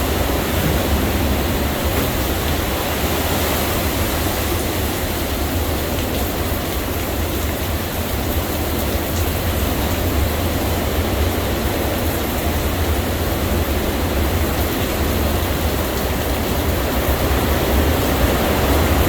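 Hurricane wind blowing hard and steadily, with heavy low rumbling buffeting on the microphone, swelling slightly near the end.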